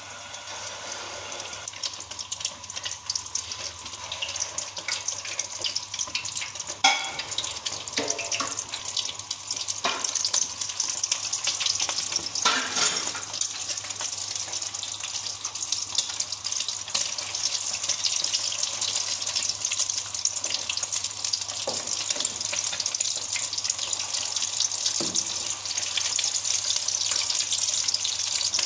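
Egg-coated potato cheese balls deep-frying in hot oil in a wok: a steady crackling sizzle that gets gradually louder, with a few sharp clicks in the first half.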